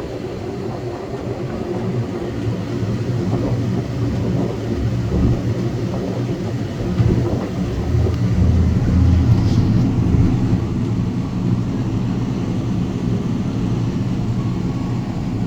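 Steady low mechanical drone with several held low pitches, swelling a little louder about halfway through.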